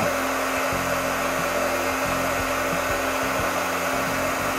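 Heat gun running steadily, an even rush of hot air blowing on the plastic arm of a disposable dental articulator to soften it for bending.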